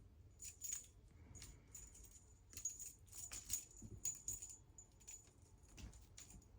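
A small bell jingling in many quick, irregular shakes, its high ringing note sounding again and again.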